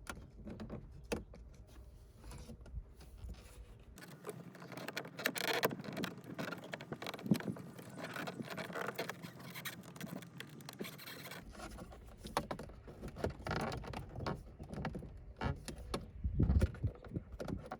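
Car dashboard trim being pried loose with a body panel tool: irregular clicks, taps and scraping of plastic as the clip-on panel is worked off its pins.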